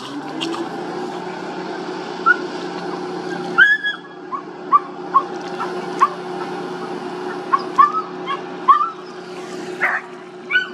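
Tug's engine droning steadily at one pitch, settling in about half a second in. Over it come about a dozen short rising yips from an animal at irregular intervals.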